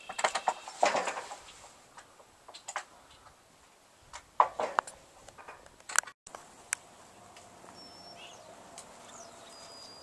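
Scattered sharp knocks and clicks, coming in clusters through the first half. After that it goes quieter, with a faint steady hum and two brief high chirps near the end.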